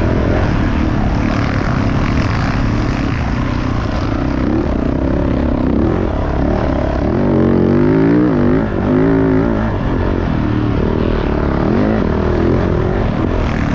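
Dirt bike engine running hard around a motocross track, its pitch rising and falling several times about halfway through as the throttle is worked.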